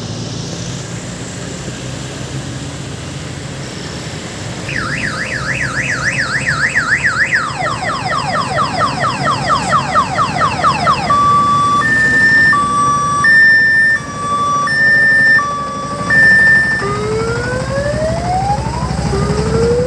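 Odong-odong's electronic multi-tone siren cycling through its patterns over a low engine hum. After about five seconds of engine alone comes a fast warble of about four cycles a second, then rapid falling sweeps. About halfway through it switches to a two-tone hi-lo, and near the end to slow rising whoops.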